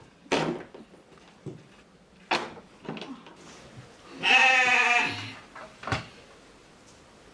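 A sheep bleating once, a wavering call of about a second, some four seconds in, with a few short sharp sounds before and after it.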